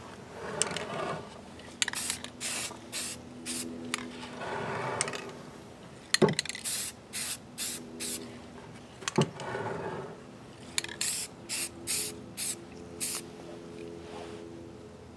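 Aerosol can of black spray primer hissing in many short bursts, several a second, in runs with brief pauses. Two sharp knocks sound partway through.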